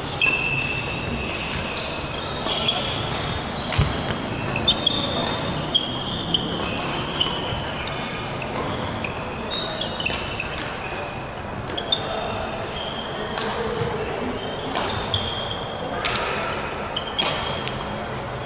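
Badminton rally: sharp strikes of rackets on the shuttlecock at irregular intervals, with many short, high squeaks of court shoes on the wooden floor.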